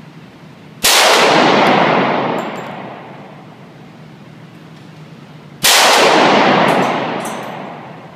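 Two shots from a Smith & Wesson M&P Compact pistol in .40 S&W, about five seconds apart, each ringing out and echoing for a couple of seconds in the enclosed indoor range. A few faint ticks follow each shot.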